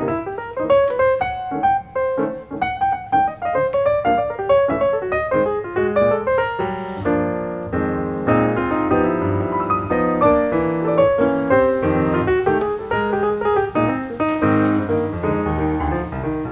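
Background piano music, a steady flowing melody of struck notes.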